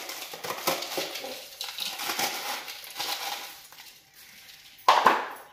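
Frozen spinach leaves rustling and crunching as they are shaken and pulled out of a plastic container into a mixing bowl. A single sharp knock near the end is the loudest sound.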